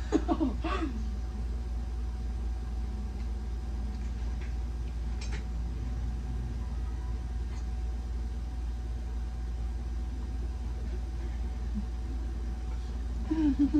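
A steady low hum, with a few faint short clicks in between. Brief voices at the start and near the end.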